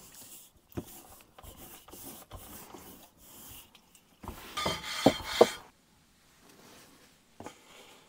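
Hands stretching and pressing pizza dough on a wooden tabletop: soft rubbing and light taps, with a hissing rustle of about a second a little past the middle that ends in two sharp knocks.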